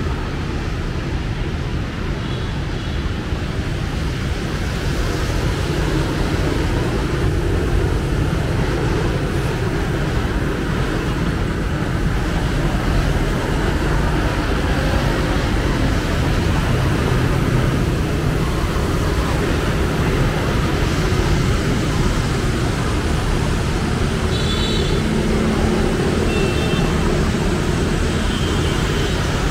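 Steady street traffic noise, heaviest in the low rumble and building a little over the first several seconds, with a few short high-pitched tones near the end.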